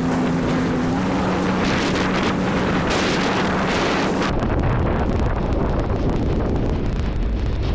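Wind buffeting the microphone on open water, over the steady low hum of a Sea-Doo Spark jet ski's engine. The hum fades about four seconds in, and the wind gets gustier.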